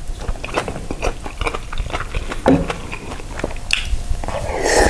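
Close-miked eating sounds: a man chewing mouthfuls of jjajang noodles and beef rib meat, wet mouth noises with many small irregular clicks, and a longer, fuller smear of sound near the end as he takes in another mouthful.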